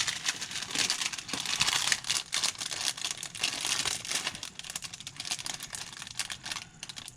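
Plastic packaging crinkling and rustling as it is handled and opened, a dense crackle that is loudest in the first few seconds and thins out toward the end.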